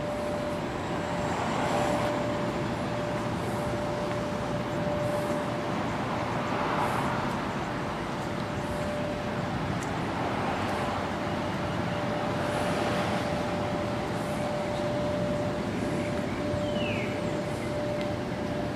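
Traffic noise: vehicles swelling and fading every few seconds over a steady hum.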